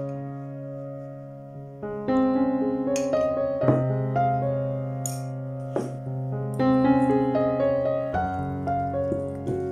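Background piano music, with new chords struck every second or two and left to ring.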